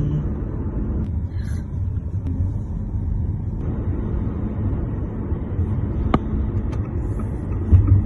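Steady low rumble of a car driving along a road, road and engine noise heard from inside the moving car, with a single click about six seconds in.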